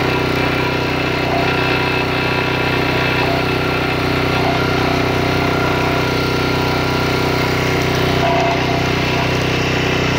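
A small engine running steadily at an even speed, its pitch and level unchanging throughout.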